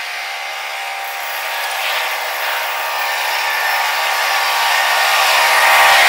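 Union Pacific freight train approaching, a steady whine of several tones over rail noise that grows louder as it nears.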